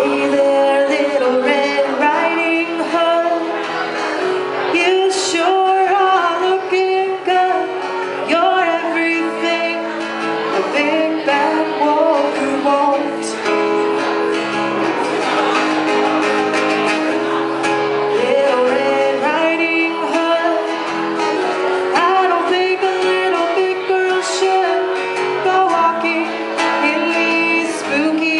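Acoustic guitar strummed live with a woman singing over it.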